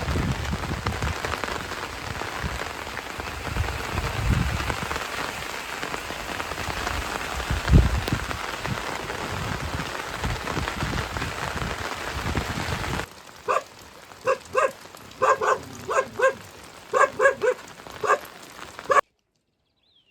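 Heavy rain falling steadily on a surface, with occasional low thumps. About two-thirds of the way through it cuts off abruptly, giving way to a run of about a dozen short animal calls. The sound then stops dead shortly before the end.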